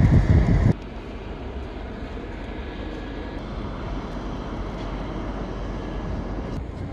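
Wind buffeting the microphone, cut off abruptly under a second in. A steady low rumble of railway station background noise follows, with no single event standing out.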